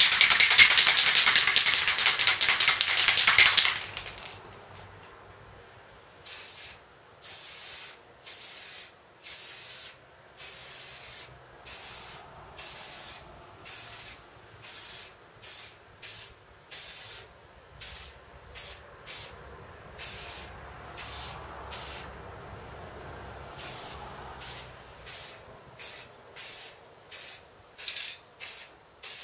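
An aerosol can of black spray paint is shaken hard for about four seconds, its mixing ball rattling. Then comes a long series of short spray bursts, about one a second, hissing from the nozzle as the first coat goes on.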